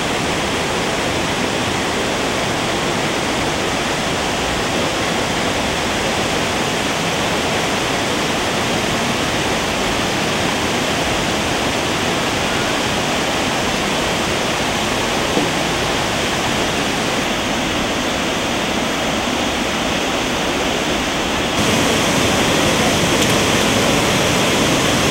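Waterfall, steady rushing of falling water, which turns suddenly louder a few seconds before the end.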